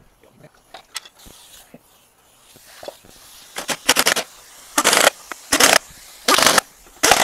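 Light clinks and knocks as the wheel and lug nuts are fitted, then, from about halfway through, a pneumatic impact wrench running the lug nuts on in a series of short, loud bursts.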